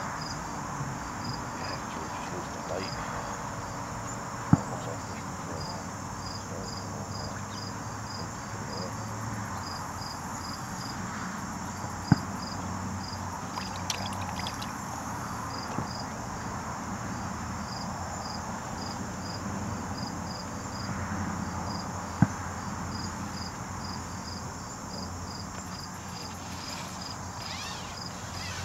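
Crickets chirping in a steady, even pulse over a low outdoor murmur. Three sharp clicks stand out as the loudest sounds, about a third of the way in, near the middle, and about three-quarters of the way through.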